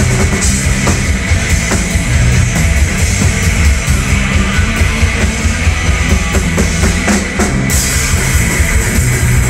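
Punk rock band playing live and loud, the drum kit and bass guitar driving an instrumental stretch with no vocals.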